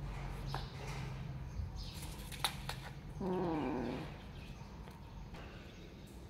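A kitten gives one drawn-out call that slides down in pitch, about three seconds in, while guarding a caught mouse. Just before it there are a few sharp clicks.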